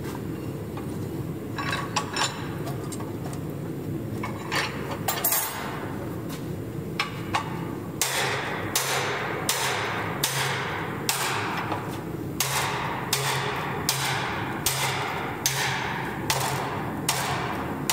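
Hammer blows on a top tool set against a red-hot steel axe head clamped in a vise: a few scattered knocks at first, then from about halfway on a steady run of ringing metal-on-metal strikes, roughly three every two seconds. A steady low hum runs underneath.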